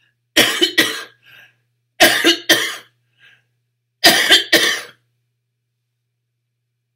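A woman coughing in three short fits about two seconds apart, each of two or three coughs, the last into her hand.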